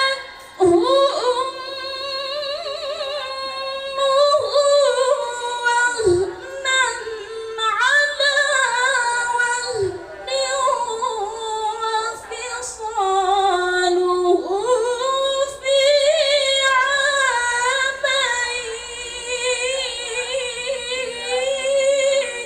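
A woman reciting the Quran in the melodic tilawah style, drawing a passage out into long, high, ornamented melismatic phrases with wavering pitch, broken only by short pauses for breath.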